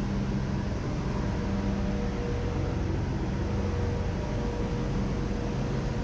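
Steady machinery noise of a ship's engine room: a constant low hum with a few steady tones over it.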